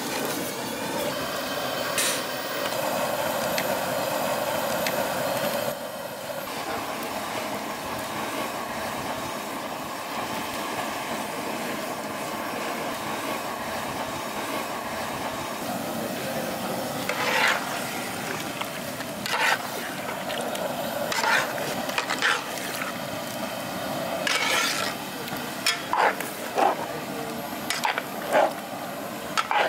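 Steady hiss from a large pot of boiling paneer butter masala gravy, dropping abruptly a little about six seconds in. From about 17 seconds a long metal ladle scrapes and knocks against the pot at irregular intervals as the paneer cubes are stirred through the gravy.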